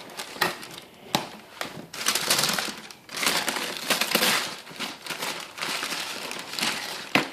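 Wrapping paper and a cardboard shoe box crinkling and rustling as they are handled, in uneven stretches with a few sharp knocks.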